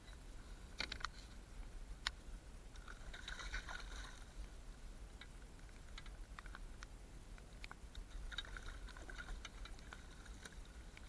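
Faint clicks, knocks and scrapes of fishing gear being handled on a kayak while a fish is brought to the landing net, with a sharp click about two seconds in and bouts of crackly scraping around three seconds and again near the end, over a low steady rumble.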